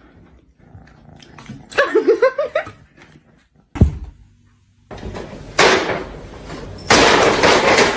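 A pet animal making sounds: a short wavering call about two seconds in, a sharp knock near four seconds, then two long harsh, noisy sounds in the second half.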